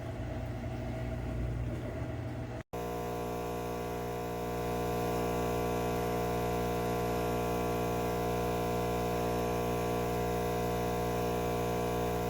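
Nespresso CitiZ espresso machine's pump running with a steady buzzing hum of many evenly spaced tones. It gets a little louder about four seconds in, after a rougher hum and a brief break near the start. This is the vibration that makes cups slowly slide off the machine.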